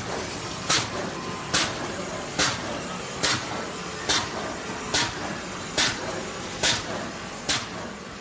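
Industrial plastic bag-making machine running: a short, sharp hissing stroke repeats evenly a little more than once a second, one per machine cycle, over a steady mechanical hum.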